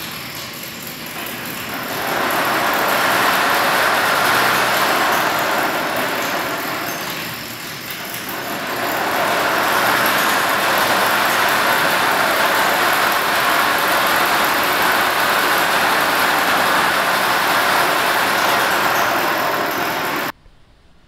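Sound installation of amplified rotating objects sounding a loud, dense noise with no clear pitch. It swells up about two seconds in, sags briefly a few seconds later, rises again, and cuts off suddenly near the end.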